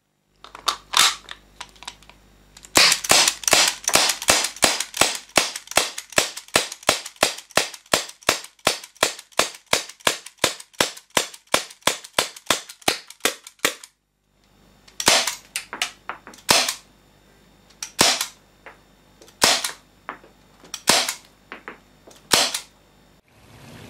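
HFC C96 non-blowback airsoft pistol firing sharp gas shots with no slide action. A few shots come first, then a long rapid string of about three to four a second. After a brief cut, single shots follow about a second and a half apart.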